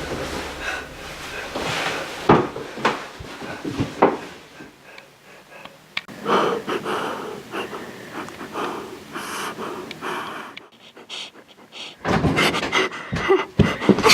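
A person panting, with heavy, irregular breaths.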